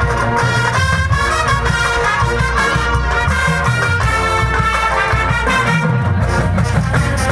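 Marching band playing loudly: massed brass, from trumpets down to sousaphones, over drums.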